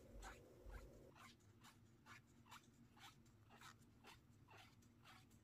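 Faint, dry paper-rubbing strokes, about two a second, as a strip of hanji is rolled between thumb and forefinger into a twisted paper cord.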